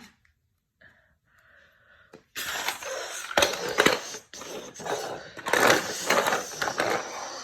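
Plastic toy pieces clattering and clicking as a PJ Masks toy robot is handled and put together into the PJ Airjet. The sound starts after about two seconds of near silence and runs as a busy rattle with many sharp clicks.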